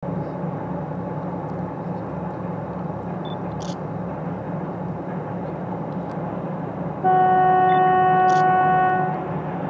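3TE10U diesel locomotive approaching, its two-stroke diesels making a steady low rumble. About seven seconds in it sounds its horn: one long, steady, single-pitched blast of about two seconds, the loudest sound here.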